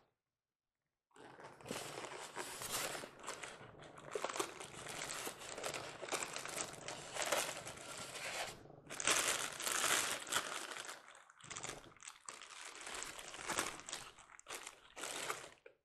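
Packaging wrap crinkling and rustling as it is pulled off a boxed model train car, starting about a second in and going on in handfuls with short pauses.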